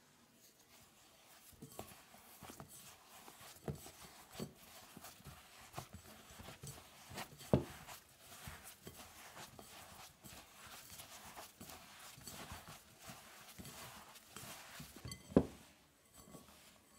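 Fingers rubbing cold butter cubes into flour in a glass bowl, a soft continuous rustling and crumbling as the mixture turns to sandy crumbs. Irregular light knocks against the bowl, the loudest about halfway through and near the end.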